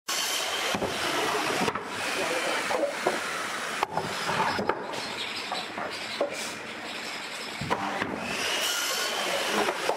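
Pine boards and cut wooden pieces set down and slid around on a wooden workbench: several sharp wood-on-wood knocks and some scraping over a steady hissing background.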